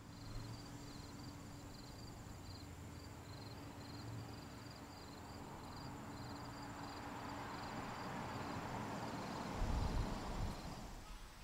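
Insects chirping outdoors, short high chirps repeating a couple of times a second with a thin steady high drone, over a low background hum. A rushing swell of noise builds through the second half and peaks with a low rumble near the end.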